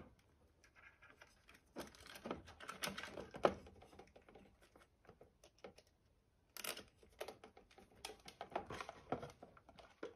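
Faint, scattered small plastic clicks and rustles of hands handling a zip tie and a plastic descaler unit against a pipe, in two clusters with a quiet pause between.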